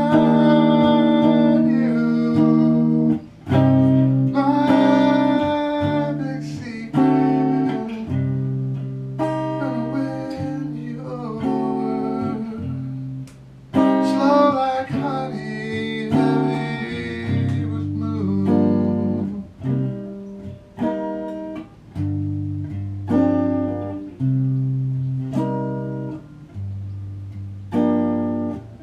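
Solo Stratocaster-style electric guitar in a clean tone, playing slow chords and picked notes that ring out and fade: a guitar arrangement of a piano part.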